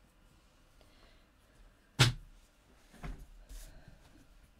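One sharp knock on the craft table about two seconds in, then a few light taps and a soft rustle as card stock is handled.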